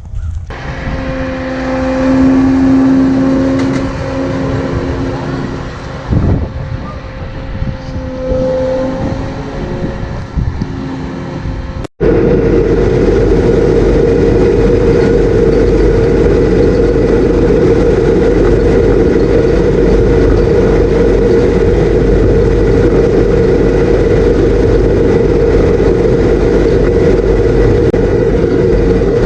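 Vehicle engines running. For about twelve seconds an engine runs with a few rises and falls in level, then an abrupt cut leads into a loud, steady drone of heavy farm machinery with a strong constant hum, consistent with the combine harvesting.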